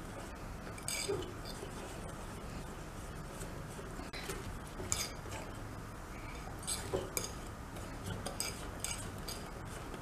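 Wire balloon whisk beating thick chocolate cake batter in a glass bowl, the wires giving scattered, irregular light clinks against the glass.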